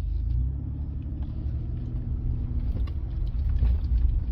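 A truck running, heard as a steady low rumble with a faint engine hum.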